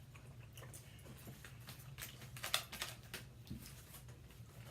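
Quiet eating sounds: scattered small clicks and taps of utensils and food containers, with a cluster of them about two and a half seconds in, over a low steady hum.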